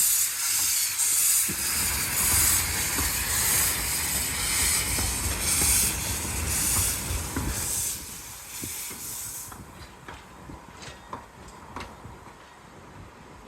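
Train at a station: a loud hiss, pulsing about once a second over a low rumble, stops abruptly about nine and a half seconds in, leaving scattered light clicks.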